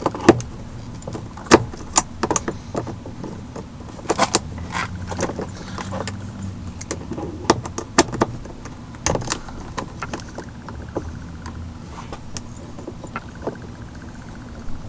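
Irregular sharp clicks, taps and small metallic clinks from working a car's interior door trim panel loose: a screwdriver, small screws and plastic trim clips being handled.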